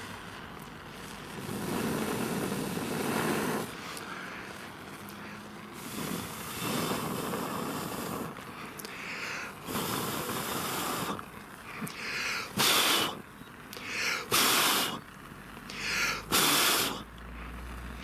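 A person blowing hard on a lit storm match in repeated breaths: a few longer blows, then shorter, louder puffs about every two seconds. The match stays lit, showing it is windproof.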